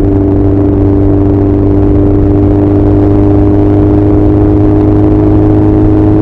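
Honda CB1100's air-cooled inline-four running through an Arrow full exhaust system while riding at a steady engine speed, with an even, unchanging exhaust note.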